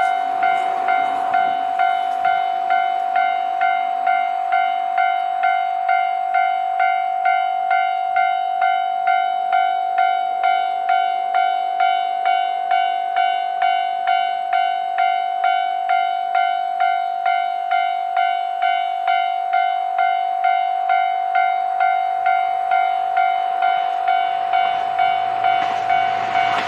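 Railway level-crossing warning bell ringing in steady strokes about twice a second as a train approaches. Near the end the rumble of the arriving diesel train rises under it.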